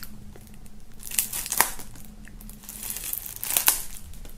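Plastic shrink-wrap on a CD digipack being slit with a knife and torn off, crinkling, with a few sharp crackles, the loudest about a second and a half in and near the end.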